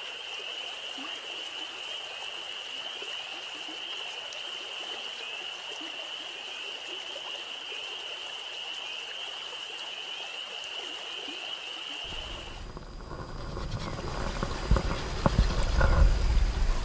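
A steady, high-pitched night chorus of calling creatures over the hiss of a running stream. About thirteen seconds in it cuts off, and louder scraping, knocks and handling noise follow as a speargun spear tip is honed on a wet stone in shallow water.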